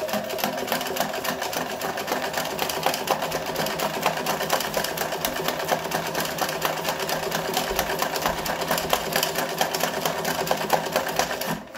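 Domestic sewing machine running fast in free-motion embroidery with a darning foot, its needle stitching rapidly through thick pressed corrugated cardboard in a steady run of stitches. The stitching stops near the end.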